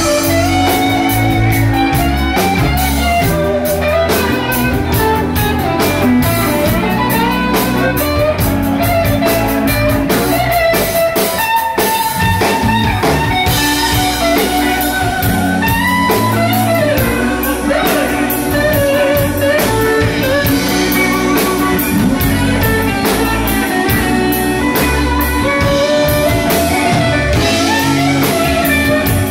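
Live band playing a blues-rock number: several guitars over a drum kit, with a melodic guitar line running through.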